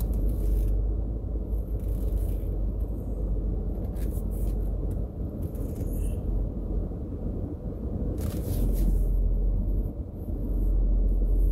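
Steady low engine and road rumble of a truck driving slowly, heard from inside the cab.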